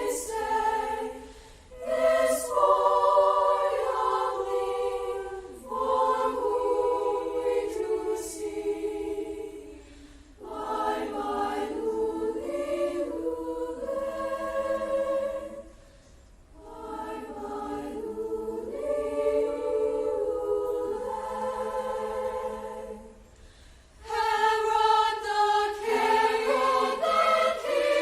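A choir singing in harmony in long held phrases, with brief breaks between phrases.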